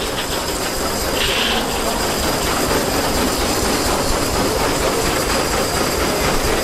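Steam traction engine belted to a sawmill, running with steady chuffing and the busy clatter of the mill machinery, and a brief hiss of steam about a second in.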